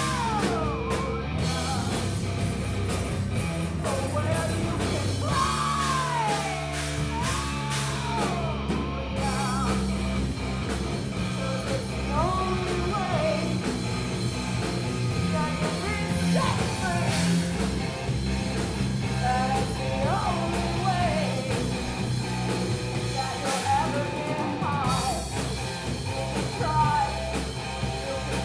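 Live rock band playing: a woman sings into the microphone, her voice gliding up and down, over electric guitar, bass guitar and drums.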